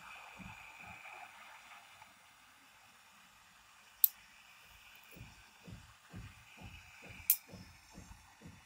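A small plastic portable radio being handled: two sharp clicks, one about four seconds in and one about seven seconds in, with soft low thumps about twice a second in the second half, over a faint hiss.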